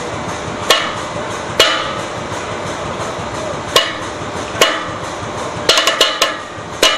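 The reinforced belt of a SureGrip casing tong breaking under over-torque load: its encased strands snap one at a time with sharp, ringing cracks, a second or more apart at first. A quick run of cracks comes near the end and a louder one at the very end, over a steady background noise.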